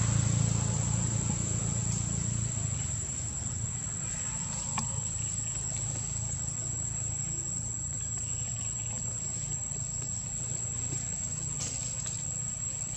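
A steady, high-pitched insect drone holding one continuous tone, over a low rumble that fades away in the first couple of seconds.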